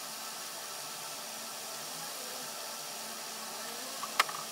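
Steady, even hiss of background noise with no other sound in it, and a single sharp click about four seconds in.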